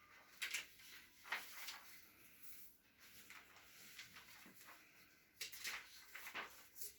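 Faint, scattered scratchy strokes of something drawing on paper, a few at a time with short gaps between.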